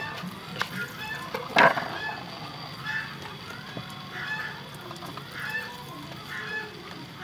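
Domestic fowl calling in the background: short calls repeating about every half second to a second, with one louder, sharper call about one and a half seconds in.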